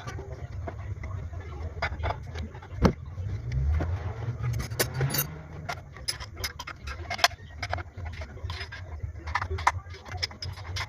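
Metal tools and engine parts clinking and rattling as they are handled, over a steady low rumble.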